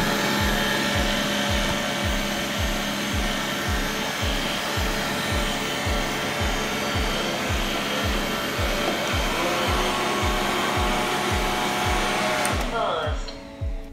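Roborock S50 robot vacuum's suction fan running steadily during a cleaning cycle, over background music with a steady beat; the vacuum stops about a second before the end.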